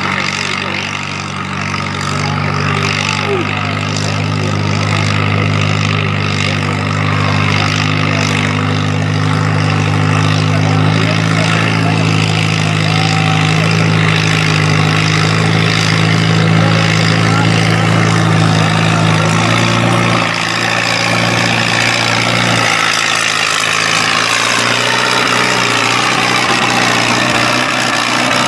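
Farm tractor engine working hard at a steady pitch during a tractor pull, held for about twenty seconds; a little past twenty seconds the note breaks and changes as the run ends.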